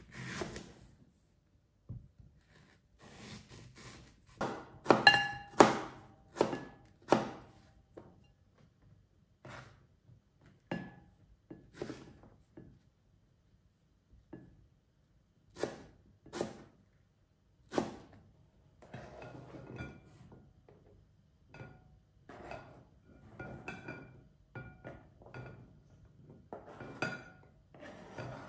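A knife cutting a mango on a cutting board: irregular sharp knocks of the blade on the board, with a few ringing clinks of the knife against a bowl, loudest about five seconds in.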